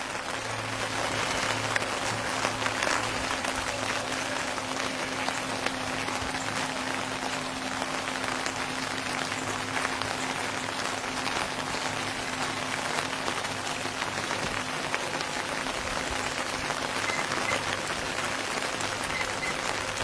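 Steady rain falling on water: an even hiss of many small drops at a constant level. A faint low steady hum runs underneath for the first two-thirds or so.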